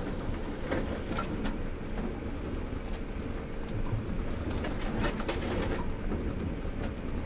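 Car driving across a rough paddock, heard from inside the cabin: a steady low rumble from the engine and tyres, with scattered knocks and rattles about a second in and again around five seconds in.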